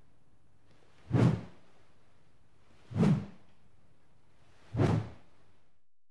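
Three short whoosh transition sound effects, about two seconds apart, over a faint steady background hiss.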